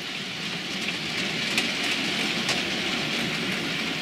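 Model train of Hornby TTA tank wagons running on the layout's track: a steady rolling hiss and rumble of small wheels on rail, with a couple of light clicks over rail joints.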